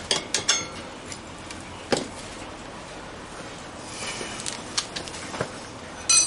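Metal tyre levers clinking and knocking against the wheel rim while the front tyre's bead is levered on by hand. A few sharp, ringing clinks come at the start and again near the end, with single knocks between.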